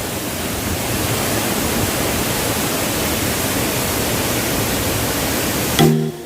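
Waterfall rushing in a steady, even roar of falling water, cut off abruptly near the end as music starts.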